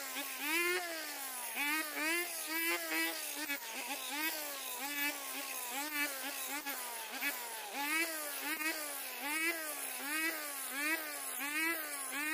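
Small Shibaura brush cutter's petrol engine running under load while cutting grass with a circular blade. Its pitch rises and drops about twice a second as the cutter is swung back and forth through the grass.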